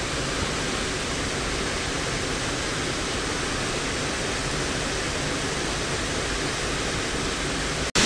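Steady rush of a small creek waterfall, an even hiss with no breaks in it. It drops out for an instant near the end and comes back louder.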